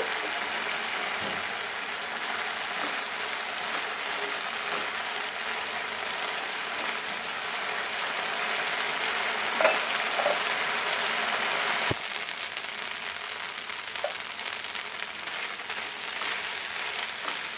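Ground mustard paste frying in hot oil in a non-stick pan, a steady sizzle as the paste is cooked down until it is well fried. A spatula scrapes and taps the pan now and then. The sizzle drops abruptly a little about two-thirds of the way in.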